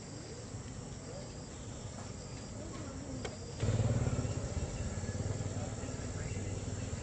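Steady high chirring of insects, with faint voices. About halfway through, a low, even engine hum starts suddenly and keeps going.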